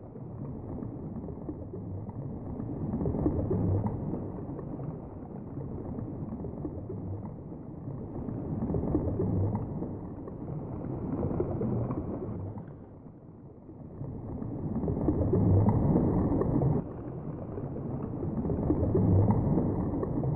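Muffled low rumble of moving water heard underwater, swelling and fading every few seconds, with a quieter dip about two-thirds of the way through.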